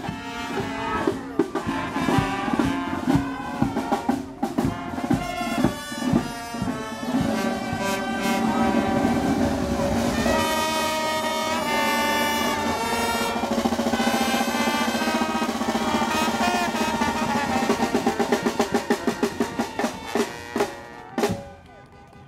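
Street band playing: trumpets and trombone over a snare drum and bass drum. Near the end comes a run of quick, evenly spaced drum strokes, about four a second, and a final hit, and the music stops.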